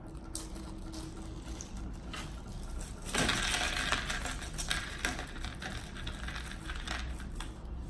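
Small plastic packet of nuts and bolts being opened and handled: soft crinkling with small clicks, turning into a louder burst of plastic crackling about three seconds in that lasts over a second.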